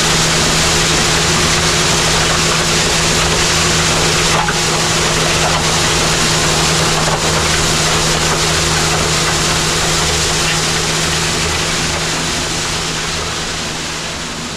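Kubota LX4020 compact diesel tractor running steadily under load, a constant engine drone over a thick rushing noise, fading gradually over the last few seconds.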